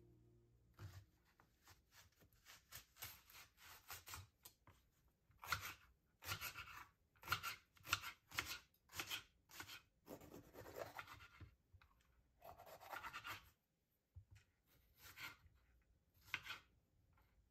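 Quiet series of knife cuts through food on a cutting board: short, irregular strokes, one or two a second, with a brief pause near the end.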